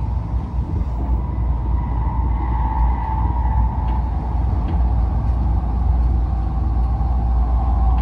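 Tokaido Shinkansen train heard from inside the passenger cabin while running: a steady low rumble of the running gear with a hum above it, growing slightly louder.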